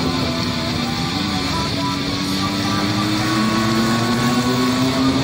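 Motorcycle engines running under way in a group ride, with wind and road noise. The engine pitch rises slowly and steadily, and a second engine tone joins about three and a half seconds in.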